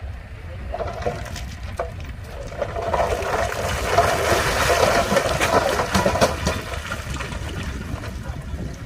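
Heavy earthmoving machinery rumbling low, with a rushing swell of loose stone sliding and clattering that builds from about a second in, peaks around the middle and dies down again.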